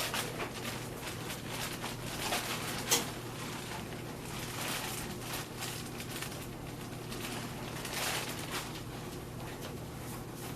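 Irregular crunching and scraping of malted grain being worked through a hand-cranked corona-style grain mill as the last kernels go in, over a steady low hum.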